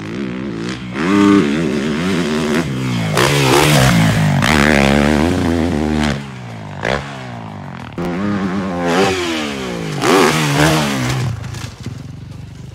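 Dirt bike engine revving up and dropping off several times, its pitch climbing and falling again and again as the rider throttles hard and lets off around the jumps.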